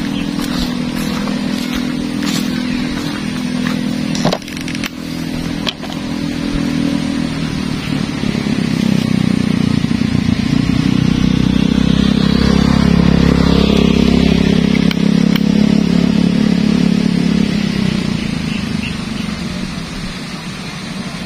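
A small engine running steadily, growing louder from about eight seconds in and fading toward the end. Sharp footstep-like clicks sound over it in the first few seconds.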